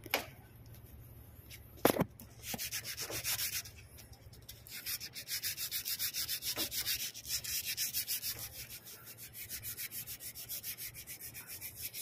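Abrasive paper rubbed back and forth on a copper refrigerant line, cleaning it to bare metal to prepare the leak for brazing: spells of fast rasping strokes, about five a second, with a sharp knock about two seconds in.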